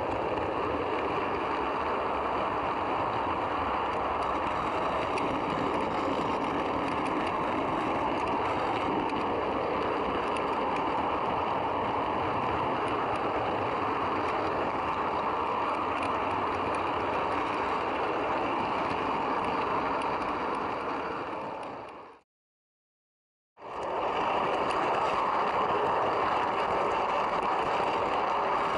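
Steady rolling rumble of a model train's coaches running along the track, heard from aboard the third coach behind the locomotive. The sound fades out briefly near the end, then comes back unchanged.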